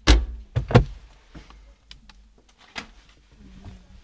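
Knocks and clicks from the fittings of a Lada Largus interior being handled: two loud thumps in the first second, then a few lighter clicks.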